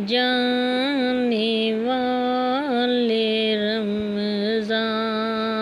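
A woman's voice singing long, held notes that bend slightly in pitch, opening an Urdu nazam.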